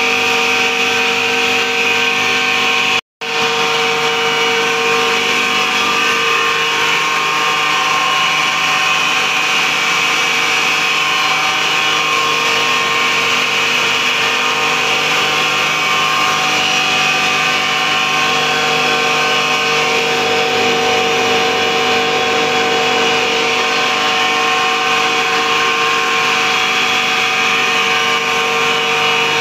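FFC-45 disk mill running steadily while grinding corn grits into flour: a loud, even machine whine with a steady hum beneath it. The sound cuts out for a moment about three seconds in.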